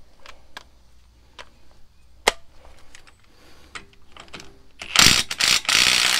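A few light metallic clicks, then about five seconds in a cordless impact wrench with a 36 mm socket hammers for just over a second on a front CV axle nut, breaking it loose.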